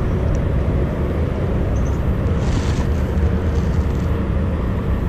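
Low, uneven rumble of wind buffeting the camera's microphone, with a brief higher hiss about two and a half seconds in.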